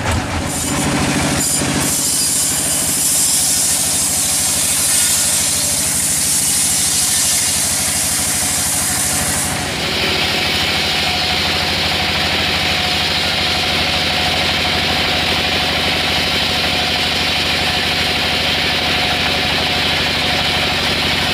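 Band sawmill running steadily with an engine-like hum while its blade cuts through a log, with a loud high hiss over the first half; the sound changes abruptly about ten seconds in.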